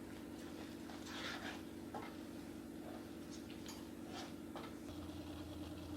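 A spoon stirring thick channa masala gravy in a pan: a few soft, short scrapes over a steady low hum.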